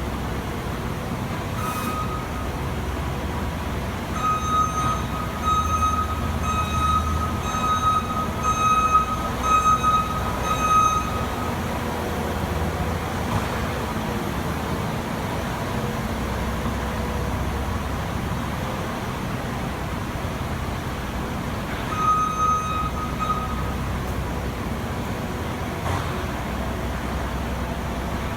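New Holland L220 skid steer's diesel engine running steadily under work, with its reverse alarm beeping in a quick series of about ten beeps a few seconds in and a shorter series near the end as the machine backs up.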